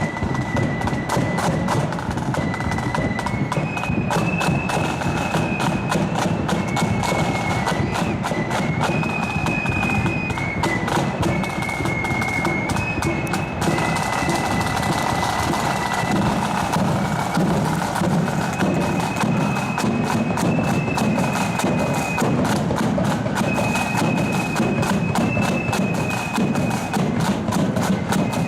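Marching Loyalist flute band playing a tune: flutes carry a high melody over rapid snare drumming and a bass drum.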